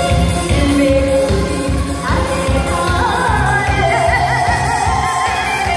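Amplified pop song played over the hall loudspeakers: a steady beat, with a singer's voice coming in about two seconds in, its held notes wavering with vibrato.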